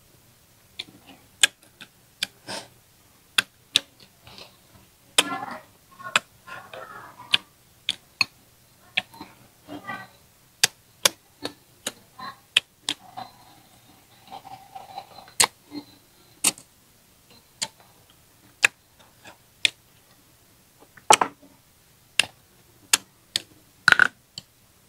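Close-miked eating sounds from a lapel microphone: sharp, wet clicks and smacks of chewing braised fish, irregular, a few every second with quiet gaps between, and a few short muffled mouth noises.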